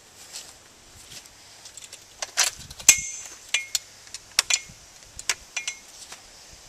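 Sharp metallic clicks and clinks from the M60D machine gun's parts as it is handled on its pedestal mount. There are about a dozen, the loudest about three seconds in, and several ring briefly.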